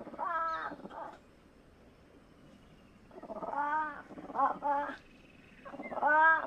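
Fishing cat calling: three bouts of short, arching call notes, one near the start, a run of several from about three to five seconds in, and one near the end, with quiet gaps between them.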